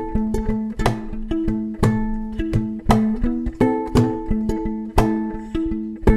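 Electric violin played pizzicato: a repeating riff of short plucked notes with sharp, clicky attacks that die away quickly.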